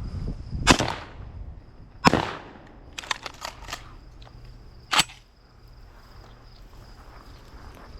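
Three shotgun shots, the second about a second and a half after the first and the third about three seconds later, with a few lighter clicks in between.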